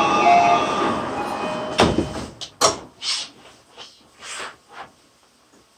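An electronic door-closing chime, then the sliding doors of a Tokyu 3020 series train thudding shut twice, about two seconds in, followed by a few softer hisses.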